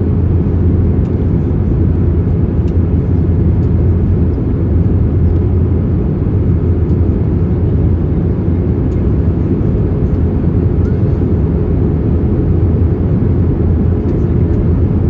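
Steady low rumble of engine and airflow noise inside the cabin of an Airbus A321 airliner during its descent, heard from a window seat over the wing.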